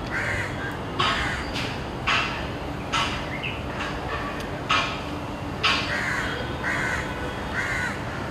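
Crows cawing repeatedly, a string of calls about a second apart, over steady low background noise.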